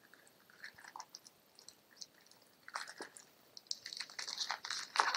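Cardboard punchboards of game tokens and their plastic wrapping handled: scattered light taps and rustles, then steady crinkling from about four seconds in.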